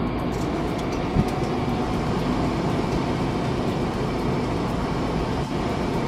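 Cartoon machine sound effect: a steady, full hiss from the glowing coil rig as it works over the truck, with a sharp click about a second in.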